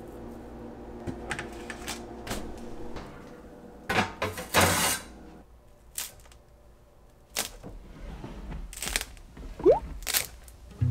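Fingertips tapping and pressing the crisp baked crust of a Neapolitan pizza, giving a few sharp taps and a short crackle just before the middle. A faint steady hum runs underneath in the first few seconds.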